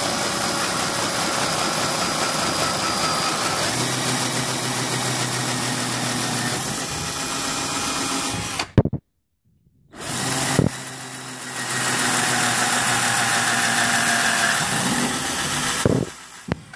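Power drill with a 3 mm bit running and boring through plastic, in two runs: the first cuts off about nine seconds in, and after a second's pause the second starts and runs until shortly before the end.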